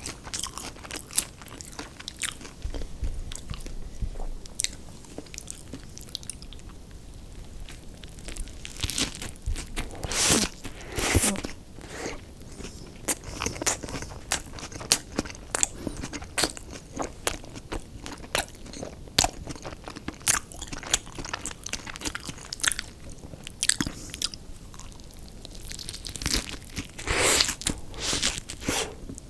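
Close-miked eating: crunchy bites and chewing of fried fast food, with irregular crisp crackles and two louder bursts of crunching, about a third of the way in and near the end.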